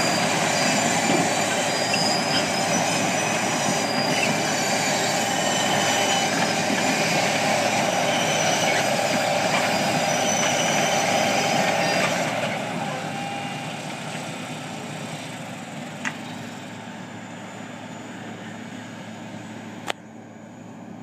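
Tesmec 1075BW trencher working: a loud, dense mechanical noise laced with high metallic squeals. About twelve seconds in it eases to a quieter steady running sound, and two sharp clicks come near the end.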